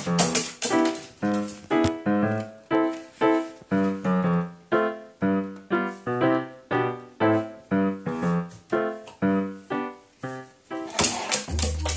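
Background piano-style music: a steady stream of struck keyboard notes, about two to three a second, each fading quickly. Near the end a short noisy burst and a low held tone come in.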